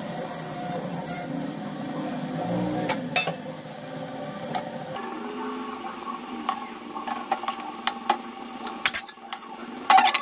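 Fish pieces being stirred into a sizzling mustard gravy in a kadai: a steady sizzle, with a few sharp knocks of the spatula against the pan, most near the end.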